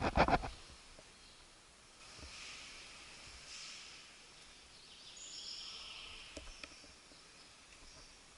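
An airsoft electric gun fires a short rapid burst right at the start, about ten sharp cracks a second. After it comes faint outdoor background with insects and birds chirping.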